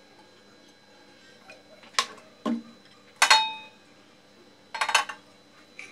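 A few sharp clinks and knocks as a nonstick frying pan is handled on a gas stove's burner grate. One clink, in the middle, is the loudest and rings briefly; a quick cluster of clicks comes near the end.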